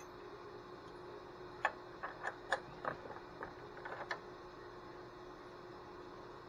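About ten light metallic clicks and clinks in a little over two seconds, starting about a second and a half in, from hands working the drill chuck and small tooling on a vertical milling machine spindle. A faint steady hum runs underneath.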